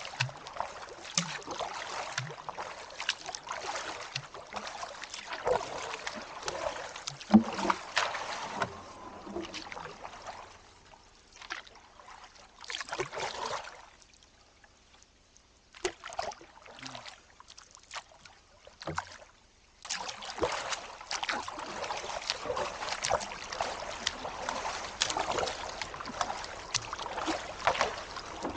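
Canoe being paddled with a double-bladed paddle: repeated strokes splashing and dripping water, with small clicks and knocks of the paddle, and a sharper knock about seven seconds in. In the middle it goes quieter for several seconds, broken by a few single strokes, as the canoe glides.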